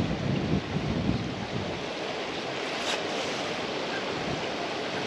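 Strong wind blowing across the microphone: a steady rushing noise, with heavier low buffeting gusts in the first second or so.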